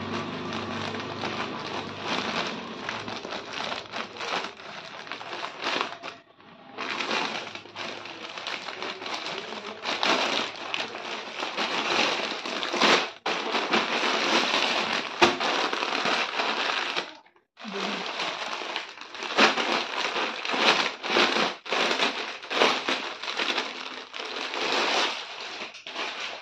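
Thin plastic packaging crinkling and rustling as it is snipped with scissors and pulled off a folded saree, in uneven crackly bursts with two short pauses, about six seconds in and again near seventeen seconds.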